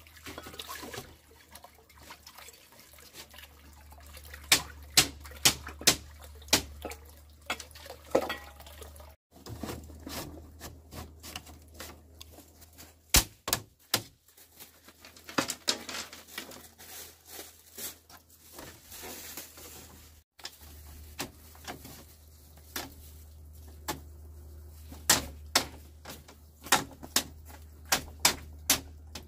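A series of sharp knocks and taps, irregular and often in quick runs of three or four, over a faint low hum.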